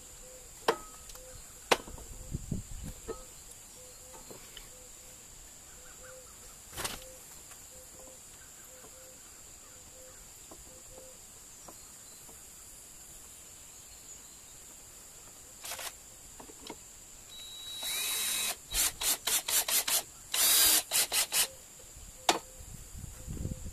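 Cordless drill run in a string of short trigger bursts and then one longer run, driving into a wooden frame, with a few sharp knocks of boards being handled before it. Insects chirp steadily in the background.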